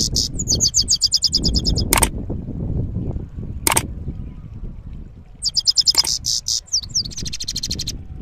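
European goldfinch singing two rolling trills, fast runs of high repeated notes, one at the start and a longer one about five seconds in. Three sharp clicks fall between them, over a low rumble.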